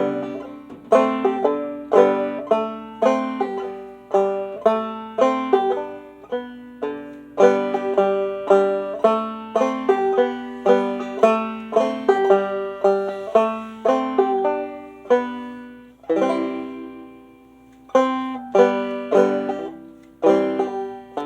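Solo clawhammer banjo played instrumentally: a steady run of picked notes, with one chord left to ring out for a couple of seconds about two-thirds of the way in before the picking picks up again.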